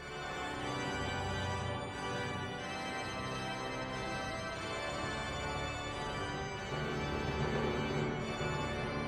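Pipe organ playing slow, sustained chords over a moving bass line.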